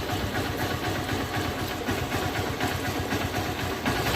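Hero Honda Hunk's single-cylinder four-stroke engine idling evenly just after a cold start, with none of the tak-tak tapping it used to make when cold: the new timing chain tensioner has cured it.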